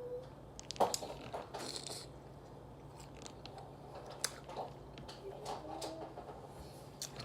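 A person eating close to the microphone: bites and chewing with scattered sharp mouth clicks, the sharpest about a second in.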